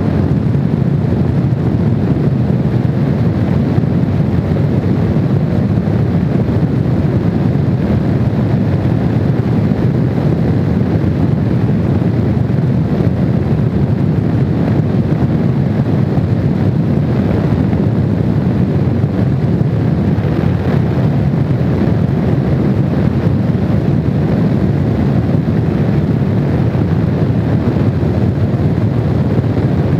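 Heavy, steady wind noise on the microphone of a Honda VFR750 motorcycle riding at speed, with the bike's V4 engine running steadily underneath. The sound stays even throughout, with no gear changes or revving.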